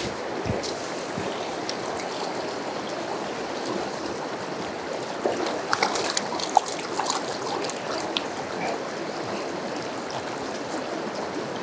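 Small mountain stream rushing and splashing over boulders in a steady run of whitewater, with a few brief sharp sounds about halfway through.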